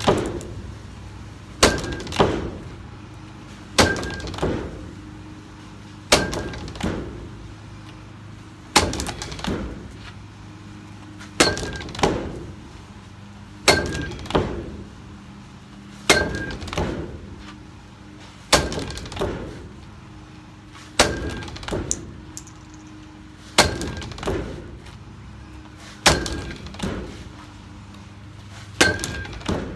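Bat repeatedly striking the tethered ball of a Hit-A-Way swing trainer, about a dozen hits spaced roughly two and a half seconds apart. Each sharp crack of the hit is followed about half a second later by a second, slightly weaker knock.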